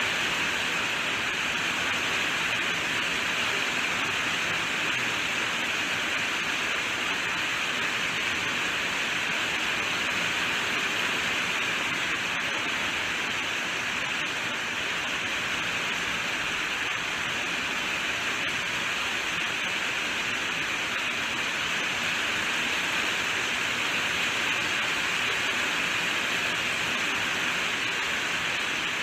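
Steady heavy rainfall: a dense, even hiss of rain with no separate drops or pauses.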